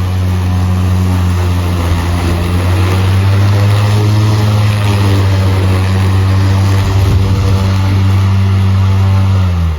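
EGO battery-powered lawn mower running steadily under load, a low steady hum from the motor and spinning blade over the rush of cut grass. Near the end it shuts off and the hum drops in pitch and cuts out.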